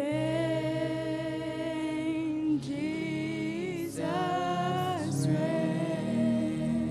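Worship singing: a single voice holding long sung notes in about three phrases over steady, sustained instrumental backing.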